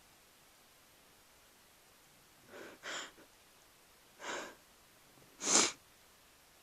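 A person's stifled sneezes: three short, breathy bursts about a second and a half apart, each louder than the last.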